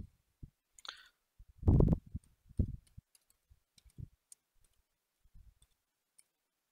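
Scattered, faint key clicks of a computer keyboard as code is typed, with one louder dull thump about two seconds in.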